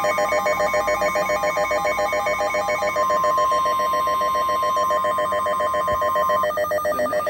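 Electronic alert tones: several tones pulsing rapidly, about eight times a second, throughout. A steady single warning tone near 1 kHz, the NOAA Weather Radio 1050 Hz alarm tone that signals a warning, joins about three seconds in and cuts off about three and a half seconds later.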